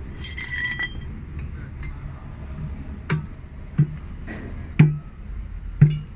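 Hammering during a bus tyre change: a ringing metal clink near the start, then four heavy blows about a second apart, each louder than the last.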